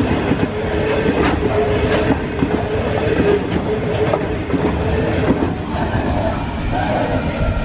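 Freight train of hopper wagons rolling past at speed: a steady rumble with the wheels clattering and knocking over the rail joints. The tail of the train passes near the end and the sound begins to fade.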